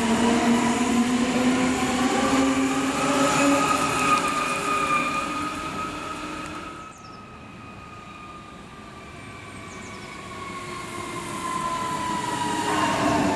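Electric S-Bahn multiple unit running past, its traction motors whining with tones that rise slightly, over wheel and rail rumble. It cuts off about seven seconds in. Then a second train approaches, a pair of DB class 423 S-Bahn units growing louder, their motor whine falling in pitch as they brake into the station.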